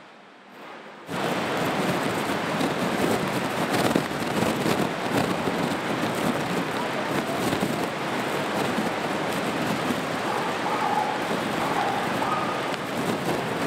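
Steady rush and hiss of water on a flooded street, rain and moving floodwater, cutting in suddenly about a second in.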